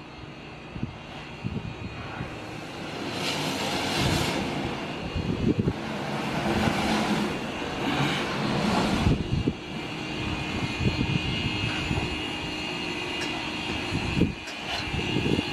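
Steam locomotive running: a steady rumble with two long bursts of steam hiss.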